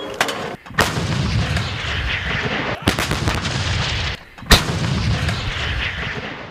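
Artillery fire: four heavy gun shots one to two seconds apart, each followed by a long rolling rumble, the last the loudest, fading out at the end.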